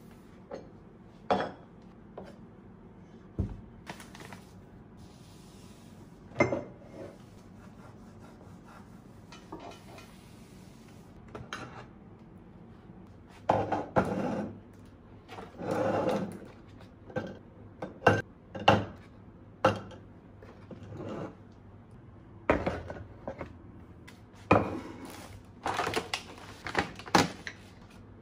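Close-up kitchen handling sounds: a cloth wiping a countertop, then eggs being lifted from their cartons and set down one by one into a ceramic egg holder and a wooden egg tray. The result is scattered light clicks and knocks, coming thick and fast in the second half, with a few longer rustles in between.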